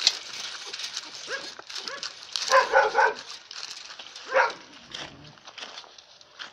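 Puppies yipping and barking in short high-pitched calls, with a quick run of yelps about two and a half seconds in and another single yip just after four seconds, dying away near the end.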